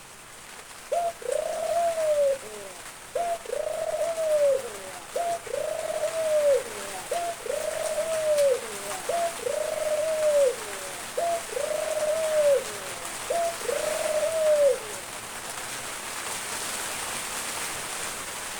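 A white Barbary dove (ringneck dove) cooing: seven repeated coos about every two seconds, each a short note followed by a longer rising-and-falling note. The calls stop about fifteen seconds in, leaving a steady hiss of rain.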